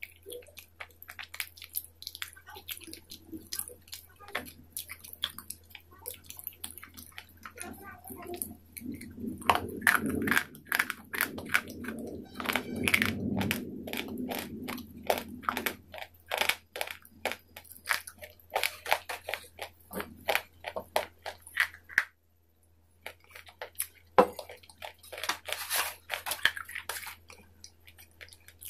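Close-miked chewing and crunching of food, with many quick, sharp crunches and clicks of the mouth, heavier from about 9 to 16 seconds in. A steady low hum runs underneath, and the sound cuts out to silence for about a second past the two-thirds mark.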